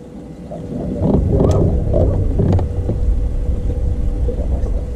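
Wind buffeting the microphone on an open boat: a rough low rumble that grows louder about a second in, with a faint steady hum underneath and a few light ticks.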